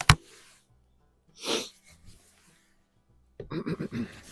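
A single shot from a .22 BSA Super Meteor break-barrel spring-piston air rifle: one sharp crack at the very start. About a second and a half later a short breathy hiss, and near the end a cluster of clicks and rustling.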